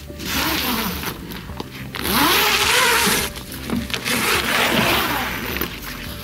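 Camping gear and tent fabric being handled and packed: repeated bursts of rustling and swishing, with zipper-like runs, over background music.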